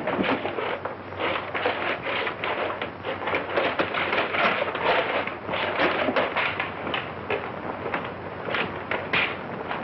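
Metal-suited robots clanking as they move and grapple: a fast, irregular run of knocks and rattles over a steady hiss.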